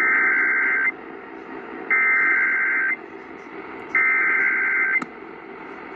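Emergency Alert System SAME header broadcast over AM radio: three roughly one-second bursts of digital data tones, about a second apart, encoding a tornado warning.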